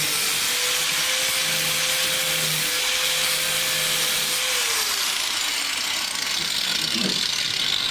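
Angle grinder running, its disc cutting through the side of an iPhone Xs with its stainless steel frame. A steady harsh grinding with a motor whine that drops in pitch about five seconds in, then stops near the end.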